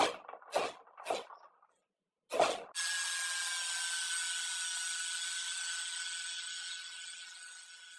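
Several short scraping strokes on rusty metal parts, then a small power tool starts and runs with a steady whine over a rushing hiss, growing fainter over the last seconds.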